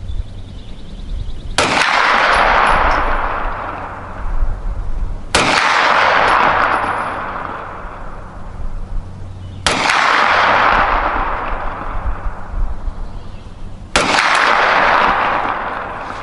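Four single shots from a Kel-Tec Sub-2000 9mm carbine, fired slowly about four seconds apart, each followed by a long fading echo.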